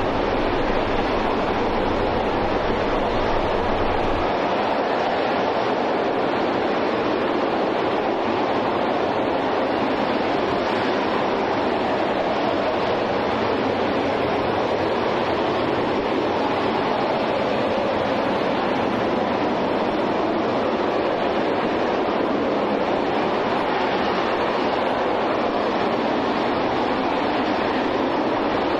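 NASA RS-25 liquid-hydrogen/liquid-oxygen rocket engine, the former Space Shuttle Main Engine, firing at full run in a static test: a loud, steady rushing roar that holds an even level throughout. A low hum underneath drops out about four seconds in.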